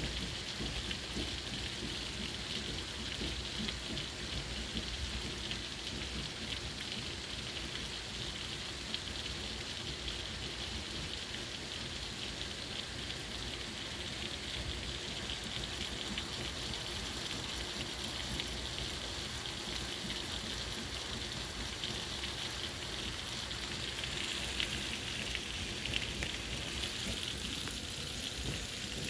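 Heavy tropical-storm rain pouring down steadily, an unbroken hiss of a downpour.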